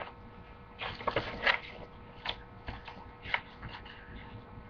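Soft paper rustles and light taps, as of a book's page being turned and handled, clustered about a second in with a few scattered taps after.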